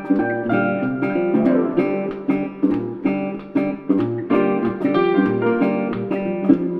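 Background music: an acoustic guitar picking plucked notes and chords at a steady pace.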